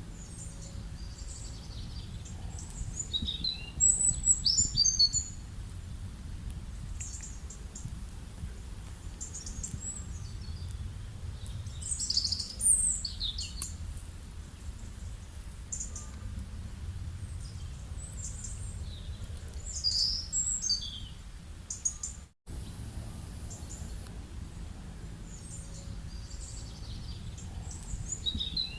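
Small birds chirping and twittering in short bursts, about every eight seconds, over a steady low background rumble of outdoor noise.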